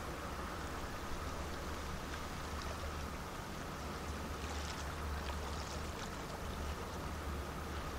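Water lapping and splashing softly against the shore stones over a steady low rumble with a faint hum. Small splashes come a few at a time in the second half.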